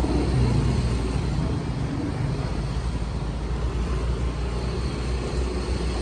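Small motor scooter's engine running steadily while riding along, with a low rumble of wind on the microphone.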